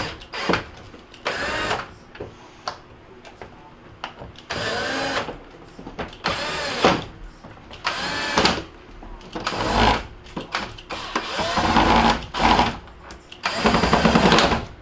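Cordless drill/driver run in short bursts, about seven times, each spinning up and winding down, as screws are driven to reassemble a dishwasher door.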